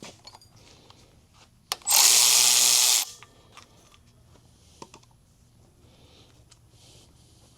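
A handheld power tool run once for about a second in a single steady burst, just after a sharp click, with a few light clicks of handling before and after.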